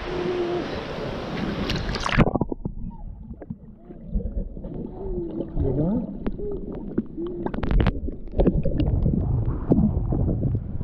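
Wind and sloshing water on an action camera's microphone at the surface. About two seconds in, the camera goes underwater and the sound turns abruptly muffled, with gurgling, small clicks and knocks.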